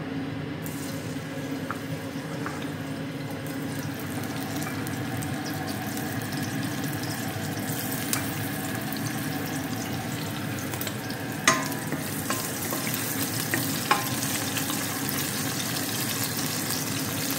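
Sliced onions sizzling in oil in a stainless steel pot over a gas burner, a steady frying hiss. Three short sharp clicks come in the second half.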